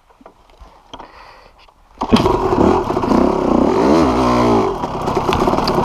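Yamaha YZ250 two-stroke dirt bike engine. After about two seconds of near quiet it comes in suddenly, loud, and revs up and down as the bike is ridden.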